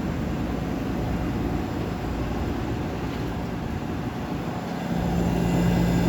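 1973 Carrier Weathermate window air conditioner running, with its fan blowing air over a steady compressor hum; the hum grows louder about five seconds in.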